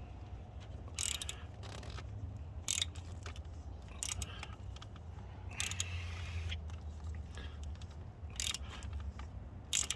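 Scattered sharp metallic clicks from a ratchet working a universal stud extractor clamped on a broken thermostat bolt, as the seized stud begins to turn.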